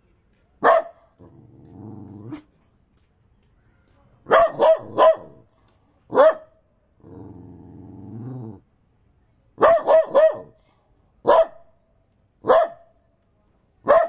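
Daito dog barking sharply, about eleven barks that come singly and in quick runs of three. Twice between the barks it gives a longer low growl, about a second in and again near the middle.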